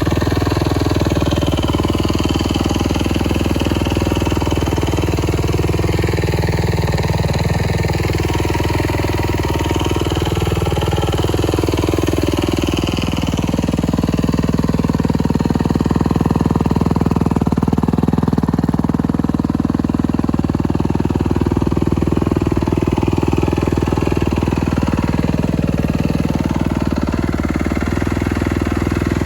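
2022 Kawasaki KX250F's four-stroke single-cylinder engine running steadily, its note shifting slightly about twelve seconds in.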